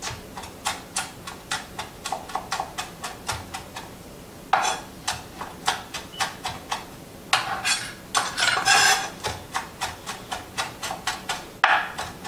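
Kitchen knife chopping a scallion on a cutting board: a steady run of sharp taps, about three a second, broken a few times by a short rasping scrape.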